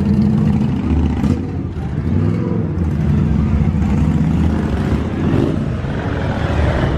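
Motor vehicle engine running steadily close by, a low hum.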